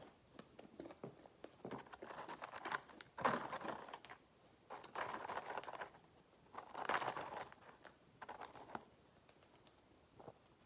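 Faint eating noises from a man eating a Burger King chicken fry: scattered small clicks and several short, noisy bursts of a second or so.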